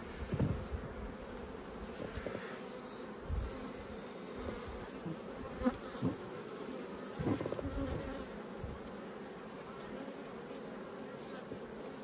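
Honeybees buzzing steadily around an opened, crowded hive, with a few soft knocks.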